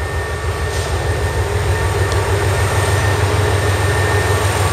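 Underfloor diesel engines of a JR West KiHa 189 diesel railcar idling while the car stands at the platform: a steady low rumble with a thin steady tone above it.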